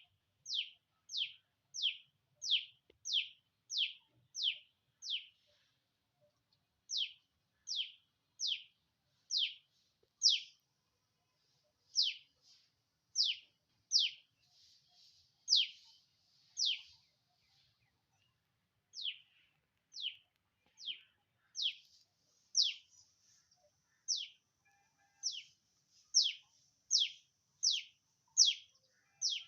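A bird calling over and over with one high note that slides sharply downward, about one and a half calls a second, in runs broken by short pauses around six, eleven and eighteen seconds in. Fainter twittering sits behind some of the calls.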